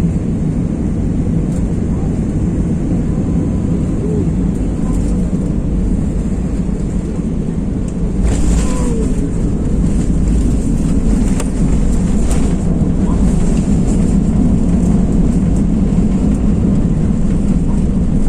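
Steady cabin noise of an airliner landing: engine drone and rushing air with a deep rumble. About eight seconds in, the sound jumps louder and stays louder, with scattered rattles and clicks.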